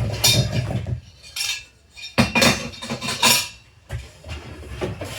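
Metal parts and screws of a washing-machine stand clinking and clattering as they are handled, in irregular bursts of knocks with the loudest in the middle.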